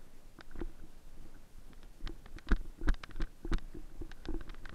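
Footsteps of the person wearing the camera, walking over grass and rubble, with gear rustling against the body: irregular knocks with dull thumps, about two or three a second, louder after about two seconds.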